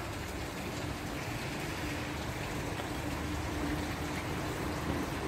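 Steady trickling of running water, with a faint steady hum beneath it.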